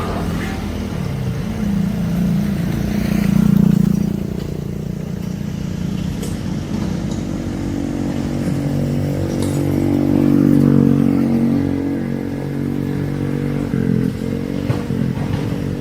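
Heavy excavator's diesel engine running under load, swelling in level twice as it works, with a few faint knocks.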